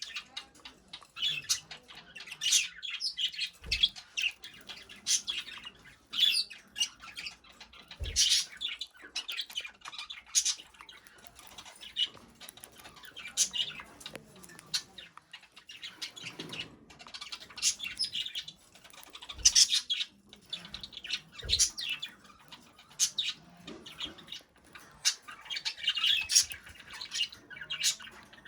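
A budgerigar chirping and squawking in a steady run of short, sharp calls, with a few brief low thumps.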